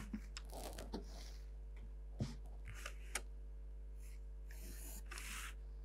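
Faint pencil strokes scratching on drawing paper against a ruler, with a few light clicks of the ruler and pencil, the longest stroke near the end. A steady low hum runs underneath.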